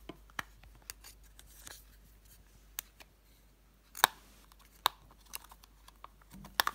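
Scattered light clicks and taps of plastic makeup compacts being handled and lifted from a plastic organiser tray, with the sharpest click about four seconds in, as a hinged compact is held open.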